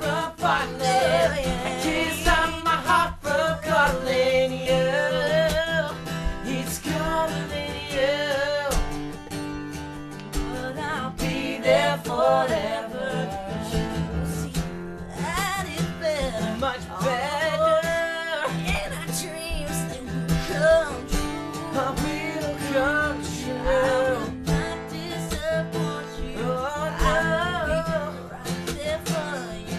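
Acoustic guitar strummed while male voices sing a song together.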